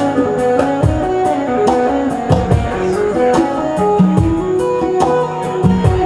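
Live band playing an instrumental passage led by guitar, with a repeating low line and steady, evenly spaced percussive hits.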